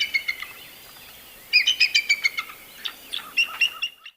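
Bald eagle calling: rapid series of high, thin whistled notes in bursts, one near the start, another about a second and a half in, and a last run that cuts off just before the end.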